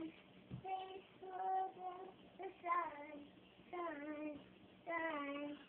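A young girl singing a tune in five short phrases of held, slightly wavering notes, about one a second, with a soft thump about half a second in.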